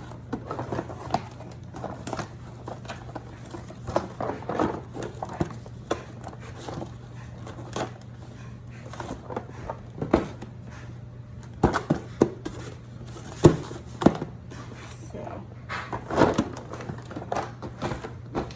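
Items being handled and set down on a table: scattered knocks and clicks with crinkling rustles of packaging, over a steady low hum.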